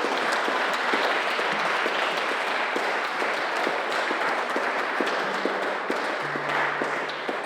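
Audience applause, many hands clapping, slowly dying away near the end; a few faint low instrument notes sound in the second half.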